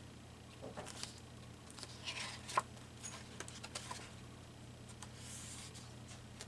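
Quiet handling of paper collage pieces: light rustling with scattered small taps and clicks, over a faint steady low hum.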